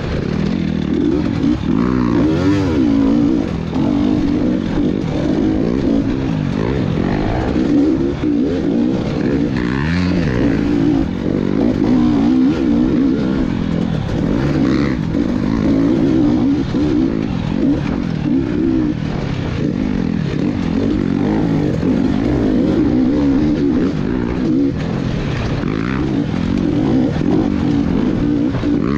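Two-stroke off-road motorcycle engine, a GasGas EX300, being ridden hard: the engine note rises and falls continually as the throttle is opened and rolled off.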